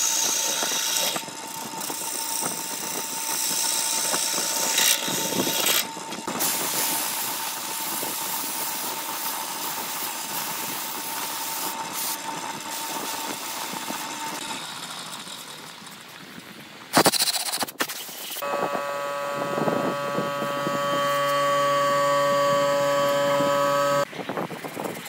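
Wood lathe running while a hand-held gouge cuts the spinning wood, giving a steady hiss of cutting over a faint motor tone, broken by several sudden edits. Near the end a steady pitched whine with several overtones lasts a few seconds before it cuts off.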